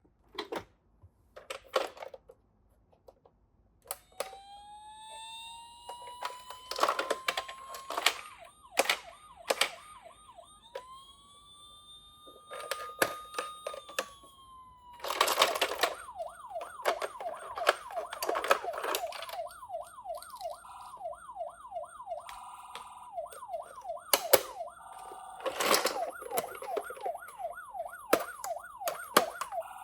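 Toy minicar's electronic siren: a tone that rises and holds starts about four seconds in, then turns into a fast up-and-down yelp from about halfway. Plastic clicks and clatters of toy cars rolling and knocking run throughout.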